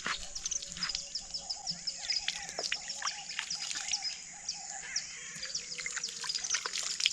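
A dense chorus of small birds chirping and twittering, with many quick, high chirps overlapping throughout.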